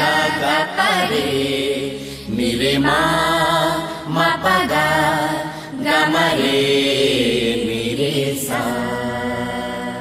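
Background music: a chanted vocal melody sung in long held phrases of about two seconds each, over a steady low drone.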